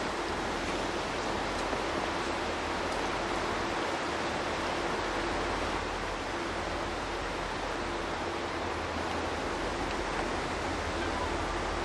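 Diesel locomotives running as they approach through a tunnel, heard as a steady wash of noise over a low, steady engine hum.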